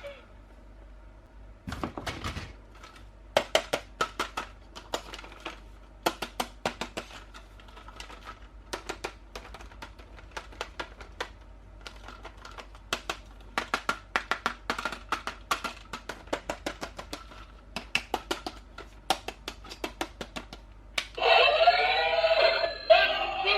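Toy packaging being handled and opened: runs of quick sharp clicks and crackles. About 21 seconds in, a battery-powered toy starts playing its electronic tune with synthetic singing.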